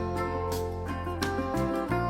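Background music: an instrumental guitar passage over sustained bass notes and a steady drum beat, between sung verses of a rock ballad.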